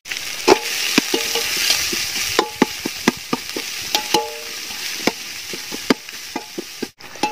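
Sliced onions sizzling in hot ghee in a large aluminium pot, stirred with a metal spoon that knocks and scrapes against the pot, some strikes ringing briefly; a short drop-out near the end.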